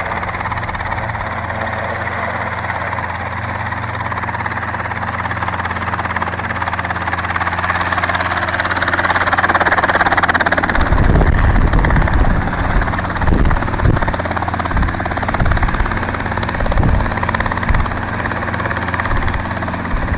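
Robinson R22 helicopter's rotor and piston engine running as it flies in low and sets down, growing louder toward the middle. From about eleven seconds in, gusty low rumbles of rotor downwash buffeting the microphone become the loudest sound.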